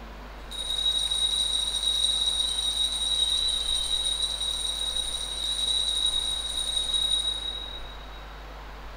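Altar bell ringing as one steady high tone, stopping about a second before the end. It marks the elevation of the chalice at the consecration of the Mass.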